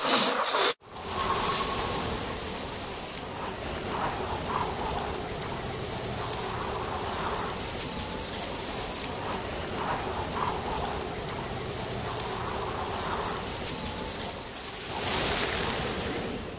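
Steady rain sound, an even hiss that starts after a brief cutout about a second in and swells slightly near the end.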